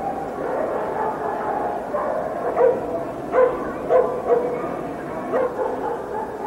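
Dogs barking: about five short, sharp barks from a couple of seconds in, over the steady murmur of a crowded hall.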